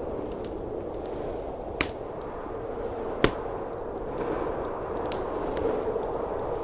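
Wood fire crackling in a fireplace, with small ticks and three sharp pops, the loudest about halfway through, over the steady rushing noise of blizzard wind.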